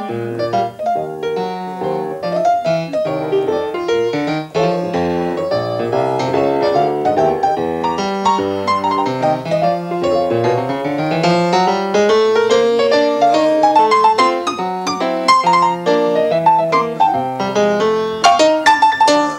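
Solo jazz piano: quick runs and chords in both hands, with a long climbing run of notes around the middle.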